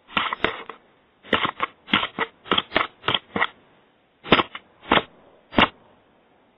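A series of about a dozen sharp knocks in irregular groups, close and loud on a doorbell camera's microphone.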